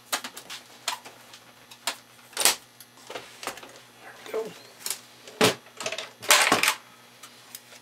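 Irregular knocks and clacks of handling: the aluminium suitcase housing of an EPROM programmer being slid aside and its circuit-board panel set down on a wooden bench, with the loudest knocks about two and a half seconds in, about five and a half seconds in, and a quick cluster near six and a half seconds.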